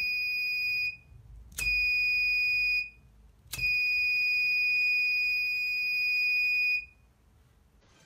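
Breadboard fire-alarm buzzer sounding a steady high-pitched tone three times: two beeps of about a second, then one held for about three seconds. Each is switched on as a lighter flame's infrared reaches the circuit's photodiode.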